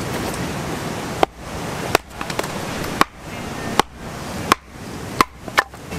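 A series of sharp chopping strikes, seven of them at uneven intervals of about half a second to a second, over a steady background hiss.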